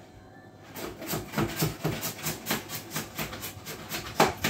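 A knife chopping on a cutting board in quick, regular strokes, about four a second, starting about a second in, with one louder knock near the end.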